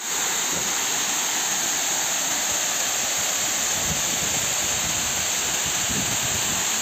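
Water overflowing a reservoir dam's spillways and pouring down the dam face into the pool below, a steady rushing sound.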